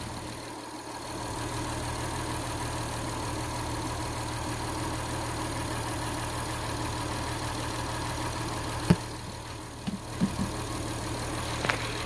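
Car engine idling steadily, heard close up under the open hood. A single sharp click about nine seconds in.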